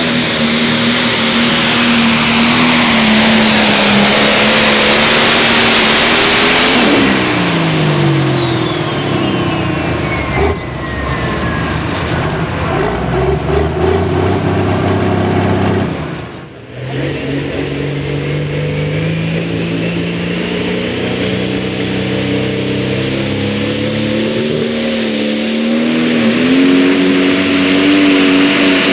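Turbocharged diesel pulling tractor at full throttle with a high turbo whine. About seven seconds in the engine is backed off, and its pitch and the whine fall away together. After a brief dip in the middle, an engine and turbo wind up again, rising steadily to full power near the end.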